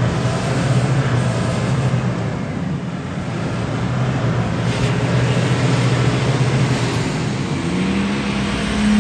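Four-wheel-drive SUV's engine working under load as it crawls through deep mud ruts. It holds a steady note, then revs up near the end.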